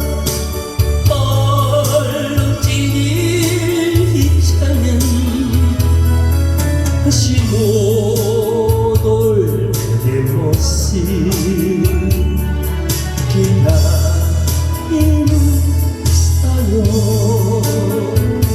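Instrumental break in a Korean trot song: a steady pulsing bass line under a wavering, vibrato-laden lead melody.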